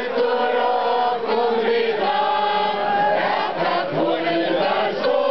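Large crowd singing a slow song together, with long held notes that step to a new pitch about once a second.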